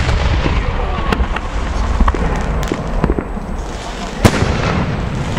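Aerial firework shells going off: a continuous low rumble with scattered sharp cracks, the loudest crack about four seconds in.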